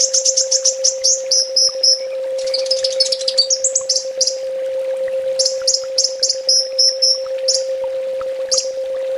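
Kolibri ninja (a sunbird) singing: bursts of rapid, high, sharp chirps and short trills separated by brief pauses, over a constant steady low hum.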